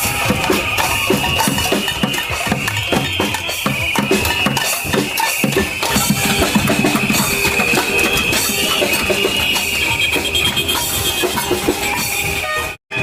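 Loud protest noise-making: rapid, irregular drumming and banging on drums or other percussion, over a continuous shrill, wavering high tone. The sound cuts out completely for a moment near the end.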